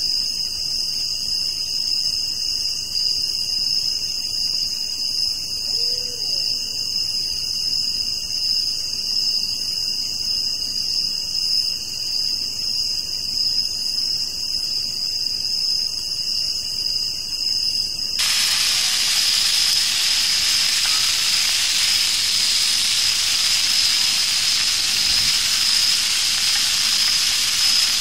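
Steady high-pitched chorus of night insects. About two-thirds of the way through, the loud sizzling hiss of sausages frying in a cast-iron grill pan cuts in suddenly and takes over, with the insect tone still under it.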